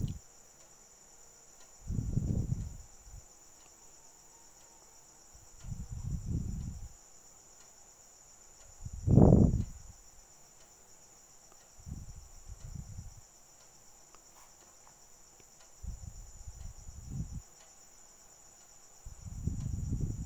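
A spatula pushing and scraping rice flour around a kadhai in short strokes every few seconds, the loudest about nine seconds in; the flour is being roasted with cream mixed in. A steady high-pitched whine runs underneath.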